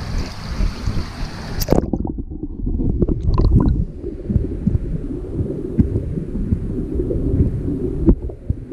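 Water splashing with a hiss as an action camera breaks the surface of a hatchery raceway. After a sharp click about two seconds in, the camera goes under and the sound turns to a muffled underwater rumble with bubbling and small knocks.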